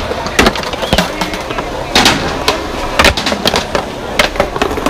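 Skateboards rolling and clacking: sharp, irregularly spaced pops and landings of several boards, about two or three a second at the busiest, over a steady rolling rumble.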